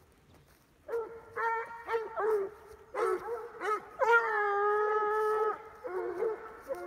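Hunting hounds baying: a string of short bays starting about a second in, with one long held bay of about a second and a half past the middle. The hounds are working the meadow with noses to the ground, giving tongue as they cast for scent.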